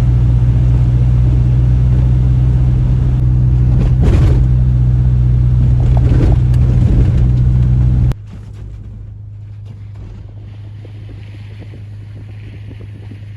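A motor vehicle's engine running steadily with a loud, deep hum. About eight seconds in it cuts off abruptly, leaving a much quieter steady low hum.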